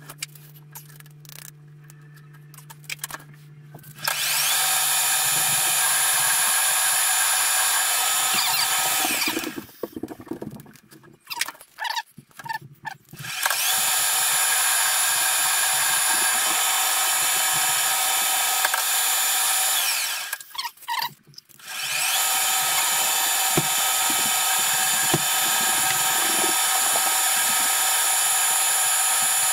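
Pratt & Whitney metal lathe running with a steady whine of motor and gears, stopped and restarted three times: it spins up about four seconds in, runs down near ten seconds, runs again from about fourteen to twenty seconds, then starts once more a couple of seconds later. Scattered clicks and knocks of handling fall in the pauses, which fit the breaks between threading passes on a drawbar.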